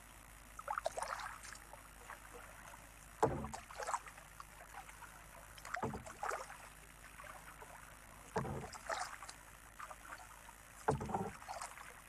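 Kayak paddle strokes on calm water: a splash and dripping about every two and a half seconds, five strokes in all, each with a dull low thump.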